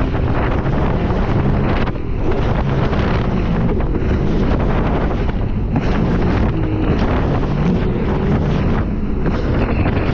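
Steady wind buffeting the microphone, with water rushing and the low running of a Sea-Doo personal watercraft underneath.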